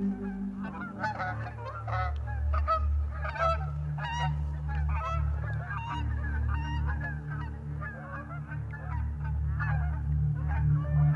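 A flock of geese flying overhead, many birds honking at once in a steady overlapping chorus. A steady low rumble runs underneath.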